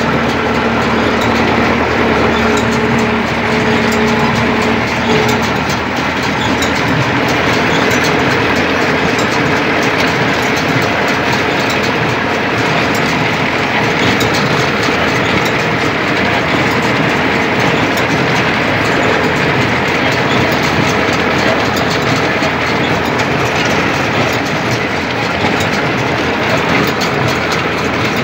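Rakovica 60 tractor's diesel engine running steadily while it drives an International B-43 small square baler picking up hay, the baler's pickup and plunger clattering over the engine.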